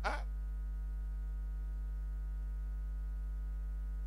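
Steady low electrical hum with a stack of fainter steady tones above it, unchanging throughout, heard through the microphone and sound system.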